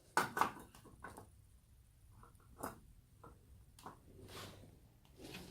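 Small hard objects being handled: two or three sharp clacks just after the start, then a few faint, scattered taps and ticks as a desoldered circuit board and its parts are moved about.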